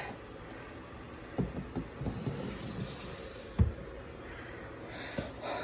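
Plastic snake tubs being slid and bumped in a reptile rack: a few dull knocks, the loudest about three and a half seconds in, over a low steady hiss.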